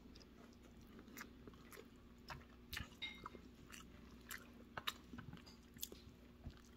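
Faint chewing of a person eating rice with stewed beef, with soft, irregular mouth clicks.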